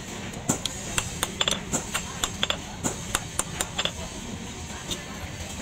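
Hammer blows on a set tool pressed against a red-hot axe head on an anvil, sharp metal clinks about three or four a second, thinning out after about four seconds.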